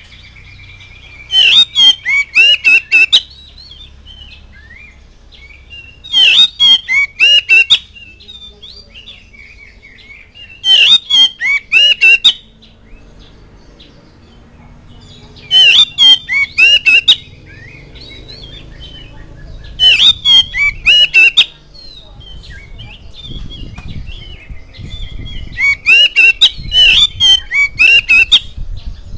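Male oriental magpie-robin (kacer) singing: six loud phrases of rapid, sharp whistled notes, one every four to five seconds, with quieter scattered notes between them.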